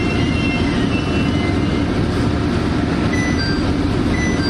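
KiHa E130 diesel railcar running on the line: a steady low rumble with a few faint, brief high tones coming and going.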